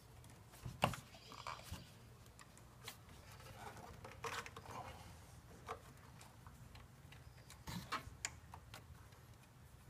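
Faint handling noises as hands fit fuel lines and fittings in a car's engine bay: scattered small clicks and taps, the loudest about a second in and a few more near eight seconds, over a low steady hum.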